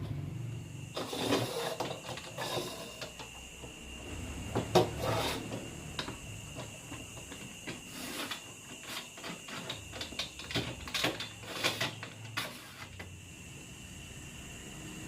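Irregular clicks, knocks and scraping of hand work with metal and wood clamp parts, starting about a second in and dying away near the end, over a faint steady high whine.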